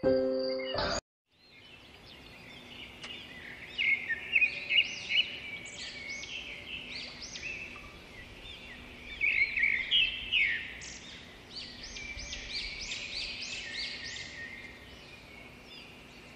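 Many small birds chirping and singing together, short quick calls overlapping one another, fading in after a brief gap. Before the gap, a short low tone cuts off about a second in.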